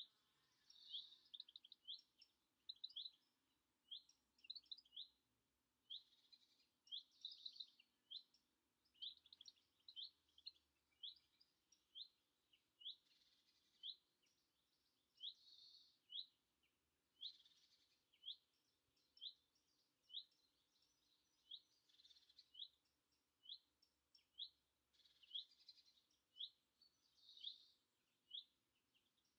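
Faint garden birdsong: short, sharp, high call notes repeating about twice a second, with brief bursts of fuller song every few seconds.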